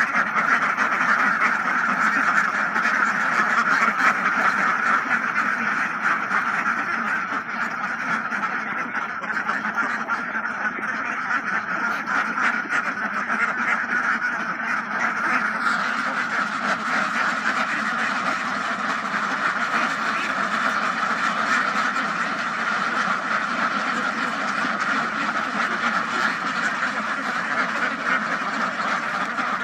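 A large flock of hundreds of domestic ducks quacking all at once, a dense, steady chorus of overlapping calls with no pauses.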